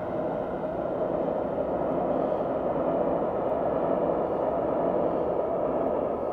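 E3-series Toreiyu Tsubasa train running away through deep snow: a steady, fairly loud running noise without any distinct tone.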